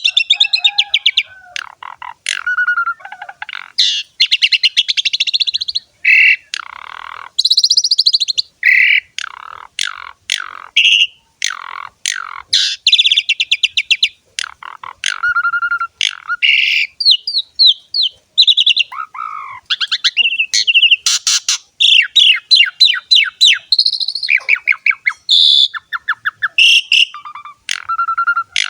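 Asian pied starling (jalak suren) singing vigorously and without pause: a varied song of whistled notes and glides broken by long, fast rattling and chattering note trains.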